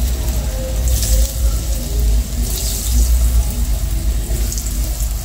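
Pieces of bammy sizzling in hot oil in a frying pan as more are dropped in, the hiss swelling in bursts about a second in and again near the middle. A steady low rumble runs underneath.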